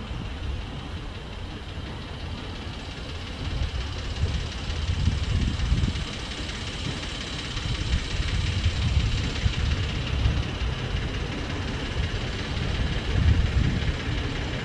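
Narrow-gauge DIEMA DS30 diesel locomotive approaching out of sight: a low engine rumble that grows louder from about four seconds in.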